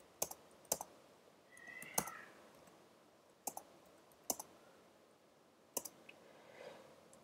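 Faint computer keyboard keystrokes: scattered single key clicks, roughly one a second, as numbers are typed in.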